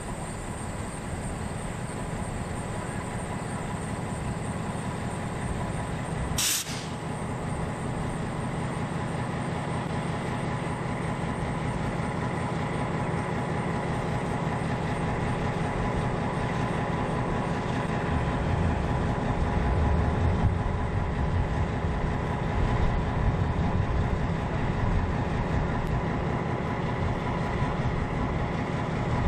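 Diesel locomotive running with a short freight train: a steady engine drone over low rail rumble, growing louder. A brief hiss cuts in about six seconds in.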